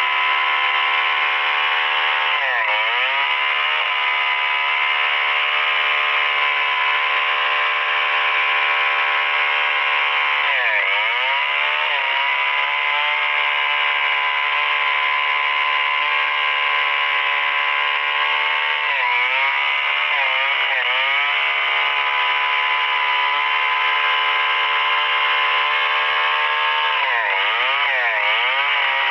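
STIHL 070 two-stroke chainsaw running at high revs under load as it rips lengthwise through a Merbau hardwood log. Its pitch sags briefly and recovers about four times, roughly every eight seconds.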